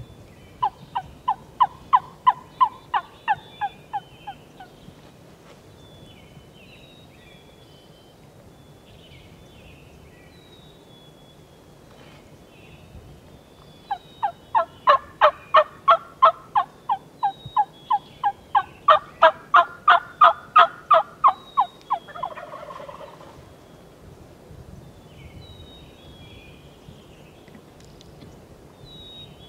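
A hunter's Phelps turkey mouth call making hen yelps, about three a second: a short run of about a dozen, then a longer run of eight seconds or so that shifts in pitch. The hunter is calling to roosted turkeys to draw them over at fly-down. Songbirds chirp faintly in the background.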